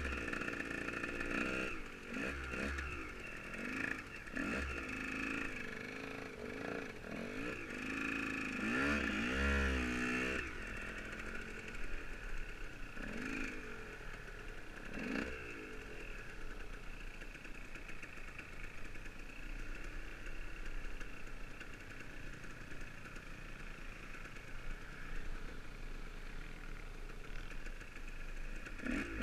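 Dirt bike engine ridden off-road, revving up and down again and again for about the first ten seconds, then running more evenly at lower revs.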